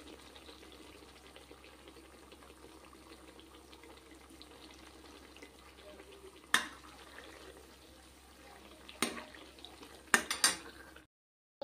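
Cream simmering down to ghee in an iron kadhai: a faint, steady sizzle. A steel ladle clicks against the pan once about two-thirds of the way through, then a few more times near the end.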